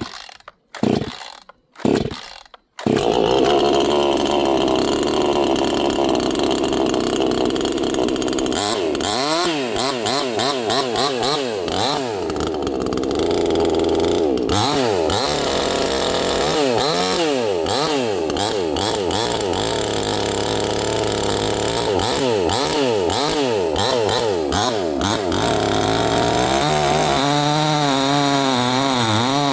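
Two-stroke 68 cc chainsaw pull-started conventionally: three short bursts from the first pulls, then it catches about three seconds in and runs loud. It is revved up and down over and over, then drops to a lower, uneven running speed near the end.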